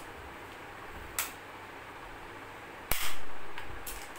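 Plastic toy train track pieces being handled and fitted together: a short click about a second in, then a louder sharp snap about three seconds in.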